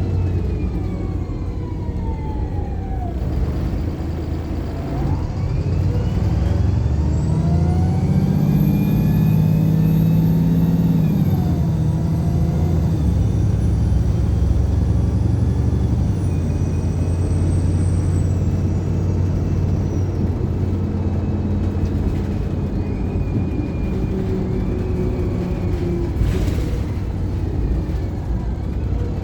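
Wright Pulsar single-decker bus under way with its automatic gearbox. The engine and gearbox whine falls at first. It then rises hard as the bus accelerates, drops at a gear change about eleven seconds in, and falls again as it eases off. Near the end there is a short hiss of air.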